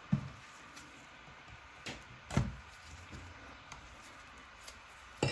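A handful of light, scattered knocks and clicks, the loudest about two and a half seconds in: a pry tool working at the shattered screen glass of an iPad.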